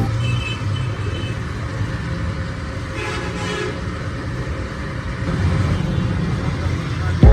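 Steady low rumbling noise of a running machine.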